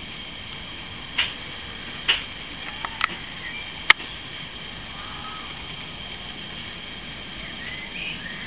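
Outdoor garden ambience: a steady hiss with a handful of sharp clicks in the first four seconds, the last the loudest, and a few faint short chirps near the end.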